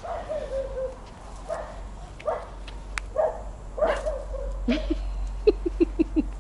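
Puppy whining, then giving short yips about every second while play-chasing. Near the end comes a quick run of about six short yaps.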